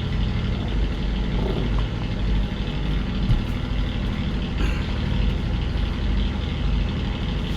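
An engine runs steadily with an unchanging low hum.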